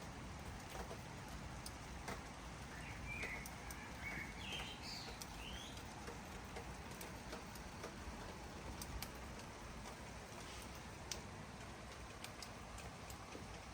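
Light rain falling steadily, with scattered drops ticking sharply. A small bird chirps a few short, quick notes about three to five seconds in.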